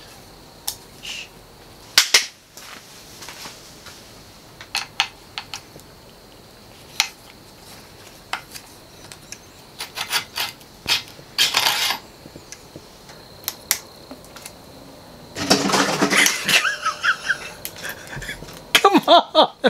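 Scattered sharp metal clicks and clinks of hand tools and brake parts as the hydraulic brake levers are taken off a mountain bike's handlebar, with a brief burst of a man's voice about three quarters of the way through and again at the very end.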